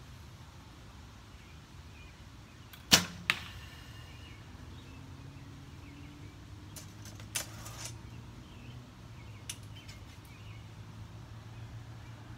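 Recurve bow shot: a sharp snap as the string is released, then a weaker crack about a third of a second later as the arrow strikes the foam target. A smaller click and a brief rustle follow a few seconds later.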